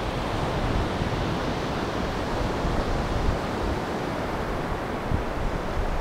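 Surf breaking on a sandy beach: a steady wash of waves, with wind buffeting the microphone in low, uneven rumbles.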